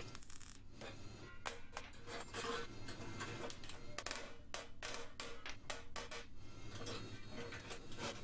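A brief crackle of a MIG tack weld at the very start, then a series of irregular sharp hammer taps on the sheet-steel horse head, over soft background music.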